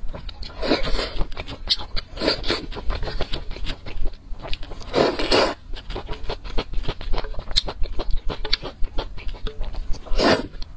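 Close-miked eating sounds: wet chewing and mouth clicks throughout, broken by several loud slurps of noodles, the loudest about five seconds in and another near the end.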